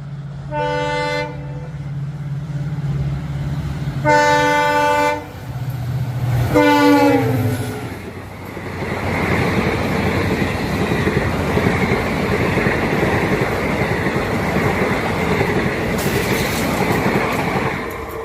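Diesel locomotive horn sounding three times over its engine rumble: a short blast, a longer one, then a third that falls in pitch as the locomotive passes at speed. The train's coaches then rush past with a steady rattle of wheels on the rails for about ten seconds.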